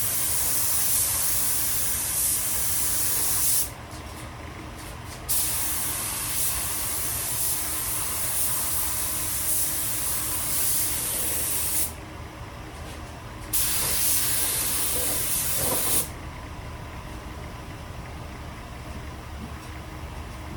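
Spray paint can hissing in three long bursts, with short breaks between them, as paint is sprayed on; the spraying stops about three quarters of the way through.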